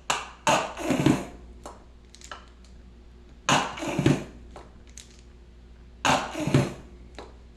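A spoon scraping light mayonnaise out of a nearly empty jar, in three short bouts a few seconds apart, with a few light clicks between them.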